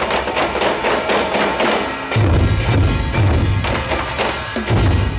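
Drum troupe beating large wooden barrel drums in a fast, even rhythm of sharp knocks, with deep booms that come in about two seconds in and return near the end.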